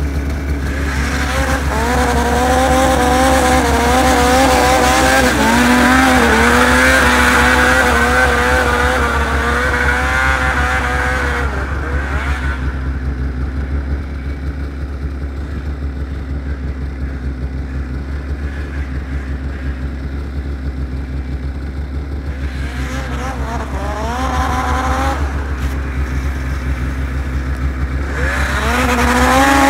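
2002 Ski-Doo MXZ 800 snowmobile's two-stroke twin engine revving in repeated pulls. About twelve seconds in it goes quieter and duller as the sled runs far off across the field. It revs up again, rising in pitch and loudness, near the end as it comes back.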